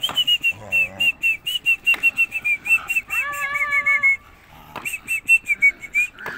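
Small puppy giving rapid, high-pitched squeaky yelps, about six a second, broken about three seconds in by one longer whine, then a second run of yelps, while a larger young dog pounces at it in rough play.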